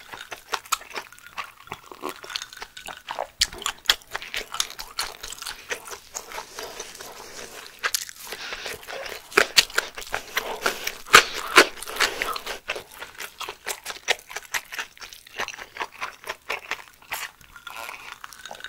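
Close-miked chewing of a mouthful of surströmming kimbap: a dense run of small wet crunches, clicks and mouth smacks.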